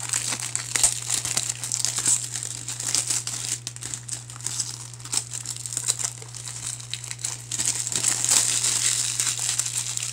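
Clear cellophane shrink wrap being torn and peeled off a DVD case by hand: continuous crinkling and crackling with many small sharp crackles.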